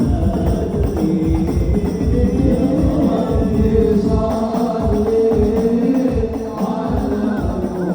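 Sholawat singing: a man holding long, drawn-out melismatic notes without clear words over a steady beat of hand percussion.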